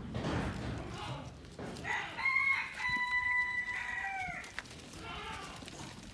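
A rooster crows once: one long, steady call of about two and a half seconds that drops in pitch at the end. A brief rustle comes just before it.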